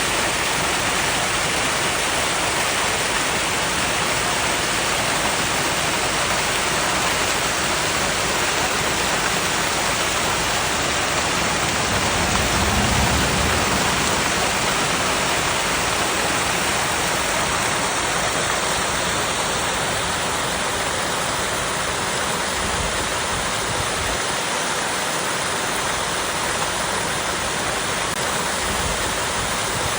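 Small waterfall cascading over rocks: a steady, even rush of falling water. A brief low rumble swells underneath about halfway through.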